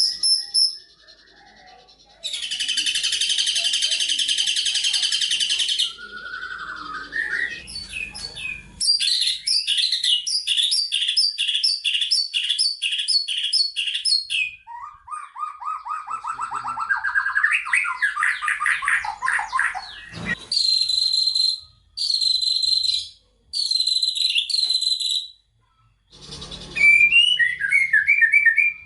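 A spliced sequence of bird calls in the mix: collared kingfisher (tengkek buto), Eurasian tree sparrow (burung gereja) and prinia (prenjak) calls one after another. There is a harsh buzzing stretch, then a run of rapid repeated chips, a series of notes rising in pitch, and short clipped calls. Each section starts and stops abruptly with brief gaps between.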